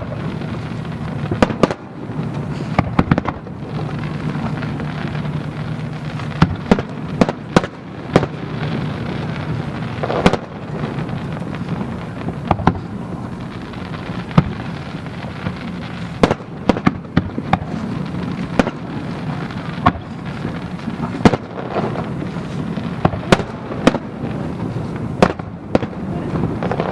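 Aerial fireworks shells bursting in an irregular barrage, many sharp bangs a second or so apart over a steady rumbling background.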